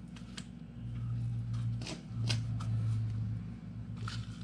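Short taps and rustles of cardboard toilet-paper tubes being shifted on a plastic tray, and a hand reaching into potting soil in a metal coffee can. A steady low hum runs underneath and swells for a couple of seconds in the middle.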